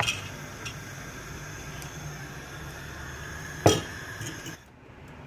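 Kitchen dishes and utensils clinking, with one sharp knock against a dish a little under four seconds in.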